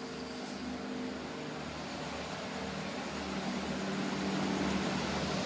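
A vehicle running steadily: a low hum with a few held tones over an even hiss, slowly growing louder.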